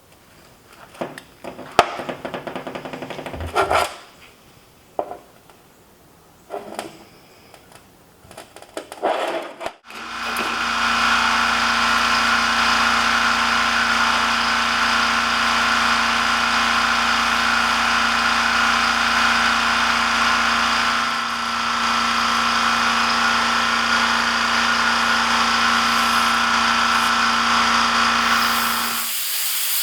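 Scattered knocks and clatter of metalwork for about ten seconds, then a power tool starts and runs steadily for about nineteen seconds before stopping near the end.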